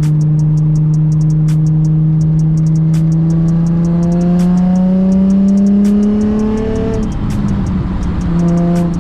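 Car exhaust through Berk non-resonated test pipes and a single Megan Racing muffler, close to straight-piped, droning steadily under way. Its pitch climbs slowly as the car accelerates, drops off suddenly about seven seconds in as the throttle lifts, and picks up again near the end.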